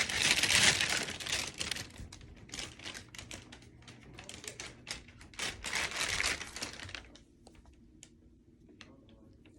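Rummaging through a stash of fidget toys: a loud rustle, then a rapid clatter of small clicks and knocks, with another loud rustle around six seconds in, then it goes quiet.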